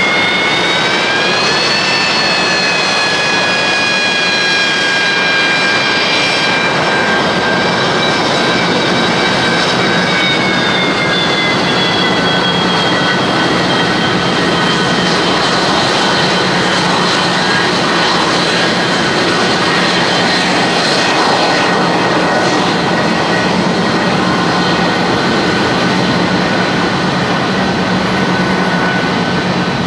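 Kawasaki C-1 transport jets' Pratt & Whitney JT8D turbofans running on the ground: a steady loud rumble with several high whining tones on top. The whine rises a little about two seconds in, then eases lower around ten seconds in.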